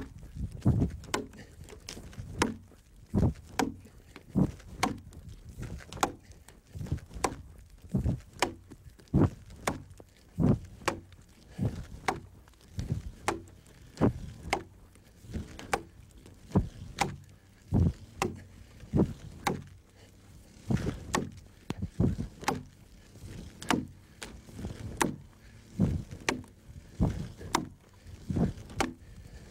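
Axe slash-scoring a log: a steady rhythm of chopping blows into the wood, about one to two a second. It is the scoring stage of hand hewing, cutting down to the chalk line before the broad axe is used.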